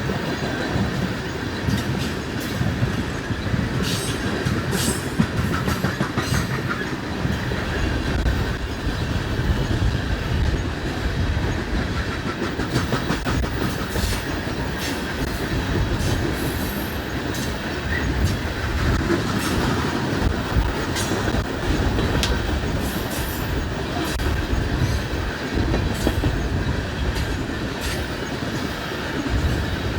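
Loaded or empty coal train cars rolling steadily past, with a continuous wheel rumble and irregular clicking as the wheels cross rail joints.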